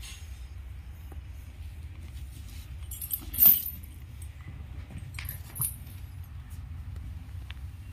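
Metal tether chain on a cow's halter jangling and clinking as she moves her head. The loudest clink comes about three and a half seconds in and there are lighter ones a couple of seconds later, over a steady low rumble.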